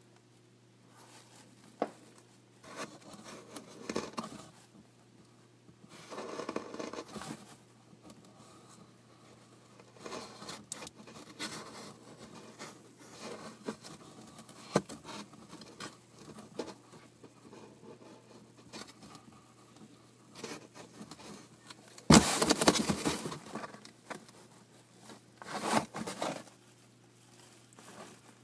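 Irregular scraping, rustling and pattering close to the microphone, over a faint steady low hum. The loudest rustling comes about 22 seconds in, with another burst around 26 seconds.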